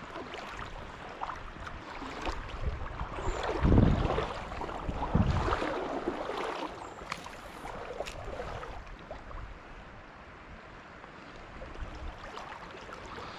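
Creek water running, with wind rumbling on the microphone in two heavier gusts about four and five seconds in, and a few light clicks.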